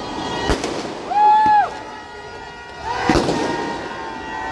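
Fireworks and firecrackers bursting: two sharp bangs about two and a half seconds apart over a crowd's shouting, with a loud held tone lasting about half a second, about a second in.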